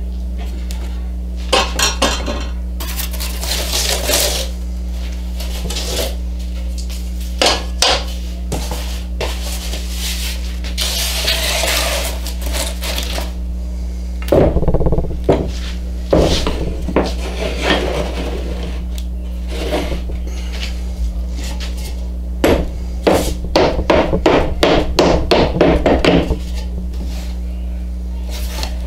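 Glued oak end-grain blocks clacking and knocking against each other and the pipe clamps as they are pushed together during a glue-up, with some sliding and scraping, ending in a quick run of knocks about four or five a second. A steady low hum runs underneath.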